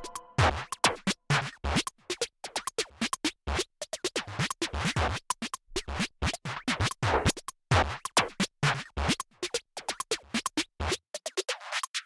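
Electronic background music made of short, choppy hits and scratch-like stutters with brief gaps between them, with some low beats underneath.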